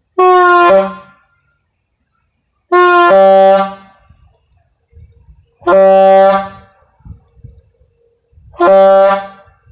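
Long diaphragm air horn sounding four loud blasts of about a second each, each sliding down to a lower, rougher note at the end. It sounds just like a Gamewell diaphone horn.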